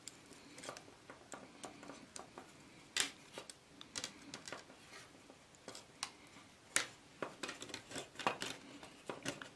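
Pliers working a stiff bare wire, twisting and tightening it around a fan heater's heating-element frame: a scatter of small sharp metallic clicks and snaps, the sharpest about three seconds in and again near seven seconds.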